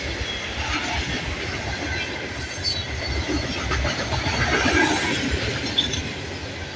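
Freight cars of a fast Norfolk Southern freight train rolling past on the near track: a steady rumble of steel wheels on rail.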